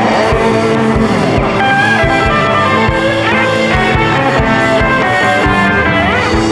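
Instrumental rock music: electric guitars and a drum kit playing a steady beat, with no singing.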